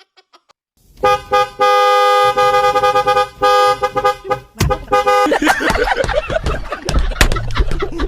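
Car horn honking: a few short toots, then longer held blasts, for about four seconds. Then a loud, jumbled burst of noise.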